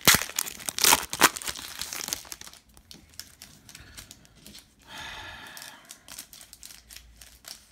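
Foil wrapper of a basketball trading-card pack crinkling and tearing as it is peeled open, loudest in the first two seconds. After that come softer rustles and ticks as the cards are pulled out and thumbed through.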